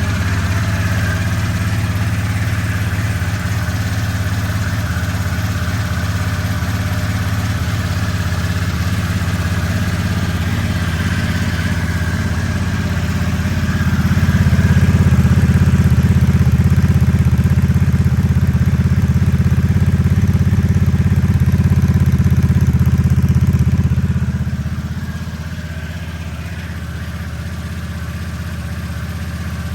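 2022 Harley-Davidson Nightster's V-twin running just after being started, idling steadily through its exhaust. About 14 seconds in it rises to a higher, louder speed, holds there for about ten seconds, then drops back to idle.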